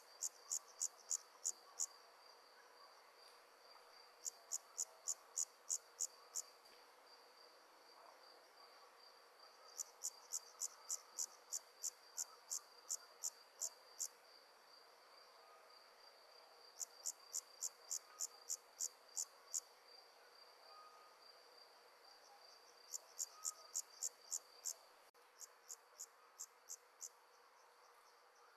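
A night-singing insect calling in trains of sharp, evenly spaced high chirps, about three or four a second. Each train lasts two to four seconds with pauses of a few seconds between, and a fainter train comes near the end. A steady high tone runs underneath.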